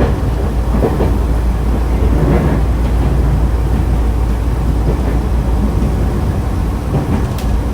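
Nankai Kada Line electric train, set 2036F, running between stations: a steady low rumble of wheels on the track with a few faint knocks.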